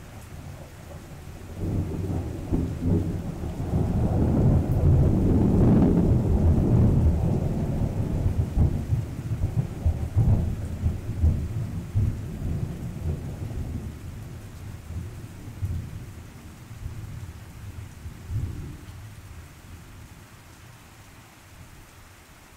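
A long rolling peal of thunder: it builds about a second and a half in, is loudest a few seconds later, then rumbles away over the next fifteen seconds. Steady rain falls underneath.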